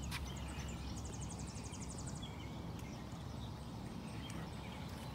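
Faint open-air ambience over a low steady hum, with a brief high, rapid trill about a second in that lasts about a second, and a few faint clicks.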